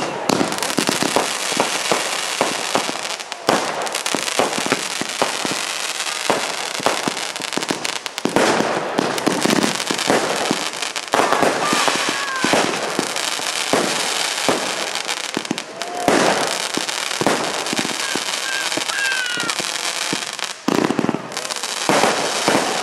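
Fireworks display going off: a dense, continuous run of sharp bangs and crackling bursts, with a brief lull near the end.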